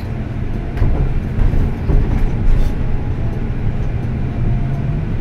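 Otokar Vectio C bus driving, heard from inside the cabin: a steady low engine drone with occasional rattles and clicks from the body.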